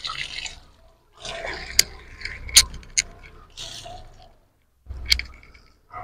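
Water from a garden tap splashing over a handful of leaves being rinsed by hand, in uneven rushes with short pauses and a few sharp clicks.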